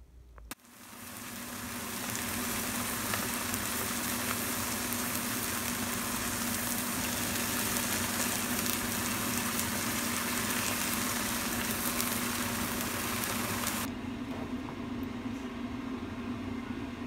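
Slices of tofu pan-frying in oil, sizzling steadily while beaten egg is poured over them. The sizzling cuts off suddenly about 14 seconds in, leaving a steady low hum.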